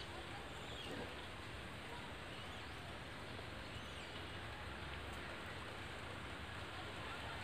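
Steady outdoor background hiss with a few faint, short high chirps of birds.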